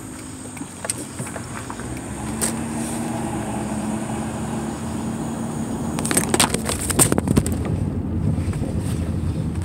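Car running at low speed, heard from inside the cabin as a steady engine hum. A cluster of sharp clicks and knocks comes about six to seven and a half seconds in.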